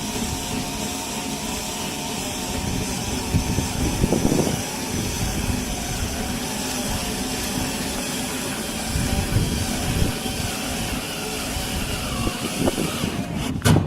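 Cordless drill boring a hole through iron, the motor whining steadily with its pitch wavering under load. It stops abruptly near the end, followed by a few knocks.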